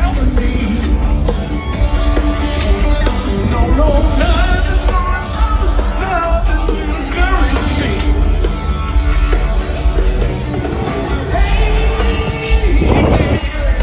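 Live rock band playing loudly through the PA, heard from the audience seats: drums, bass and electric guitar, with a wavering lead line over them.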